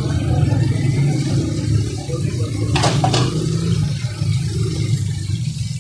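Chapli kababs deep-frying in a wide pan of hot oil: a steady, loud sizzling and bubbling. Two sharp clicks come about three seconds in.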